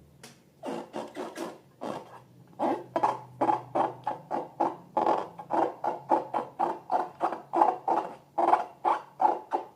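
Slime being worked by hand: a quick, regular run of wet squelches, about three or four a second.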